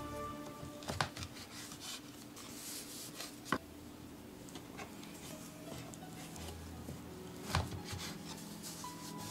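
Kitchen knife slicing through a soft, starch-dusted marshmallow slab on a wooden cutting board, with a soft rubbing drag. The blade taps sharply on the board three times: about a second in, midway, and near the end.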